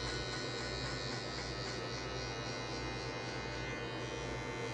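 Electric hair clippers, fitted with a 1.5 guard and the lever closed, buzzing steadily as they cut short hair on the side of the head.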